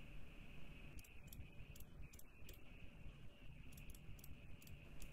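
Faint, irregular clicks from a small hand-worked switch or button on a homebrew breadboard CPU's clock board, a dozen or so spread over a few seconds, over a low electrical hum.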